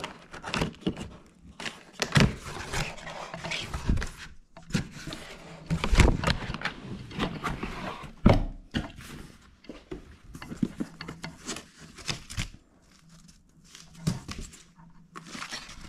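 Cardboard box being opened by hand: flaps and tab pulled, cardboard scraping and rustling, with several thumps as the box is handled, the loudest about 6 and 8 seconds in.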